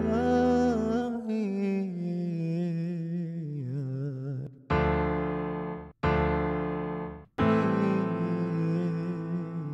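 Software electric piano chords in A minor from a DAW chord track, with a wavering melody line over them for the first half. After that come three separate chords, each struck and left to fade, then cut off abruptly before the next.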